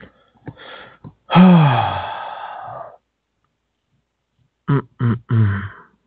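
A person's voice: a long wordless sound falling in pitch about a second in, then three short voiced sounds near the end.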